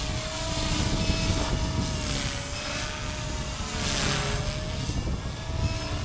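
Align T-Rex 250 electric RC helicopter in flight, its motor and rotor giving a steady whine that wavers slightly in pitch. Heavy wind rumbles on the microphone underneath.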